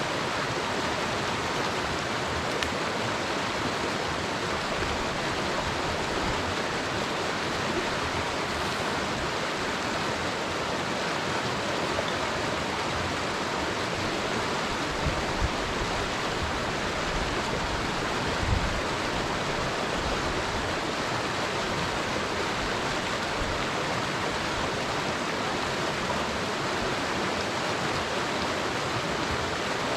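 A shallow, clear mountain creek running steadily over rocks, with a couple of brief dull bumps about halfway through.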